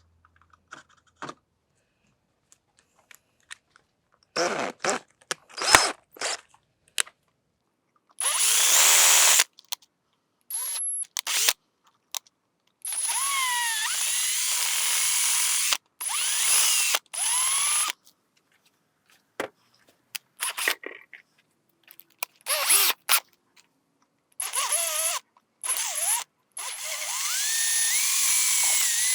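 Power drill running in short, repeated bursts, its motor speed rising and falling with the trigger, as the bit cuts out the remains of a broken bolt to reach the threads.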